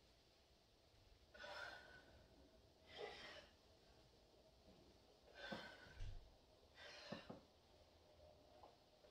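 A person breathing hard, faint, with four sharp exhalations spaced a second or two apart, and a soft low thump about six seconds in.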